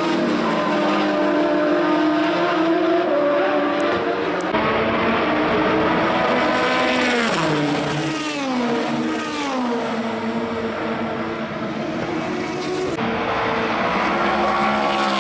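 Endurance race cars' engines at speed, several passing in turn. Their pitch repeatedly climbs and then falls in long glides as they brake, downshift or pass by, and the sound changes abruptly about four seconds in and again near the end.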